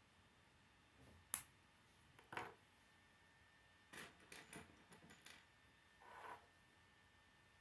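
Small plastic K'nex pieces clicking as they are snapped together by hand and set down on a wooden tabletop: one sharp snap a little over a second in is the loudest, then a quick run of small clicks around four to five seconds and a brief rub near the end.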